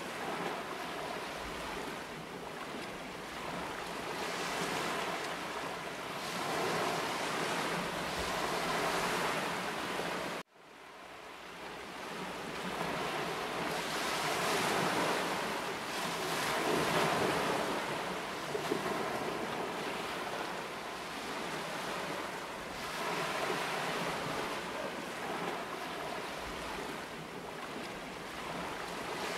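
Water rushing and splashing along the hull of a moving boat, swelling and easing every few seconds, with wind buffeting the microphone. About ten seconds in the sound cuts out abruptly and fades back in.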